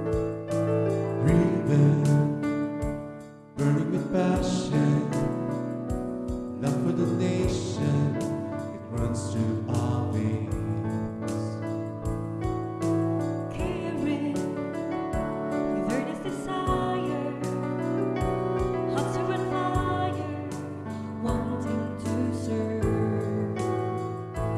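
A hymn sung by a small group of singers with piano accompaniment. The music drops away briefly about three and a half seconds in, then carries on.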